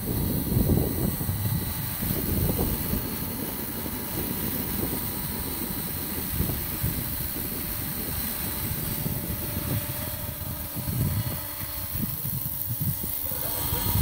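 Radio-controlled scale Alouette model helicopter flying low past, with a steady rotor and motor drone. The drone is a fluctuating low rumble with a faint high whine above it.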